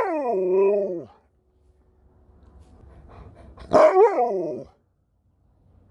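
Alaskan Malamute 'talking' back: two drawn-out vocalisations, about a second each, the first at the start and the second about four seconds in, each rising and then falling in pitch.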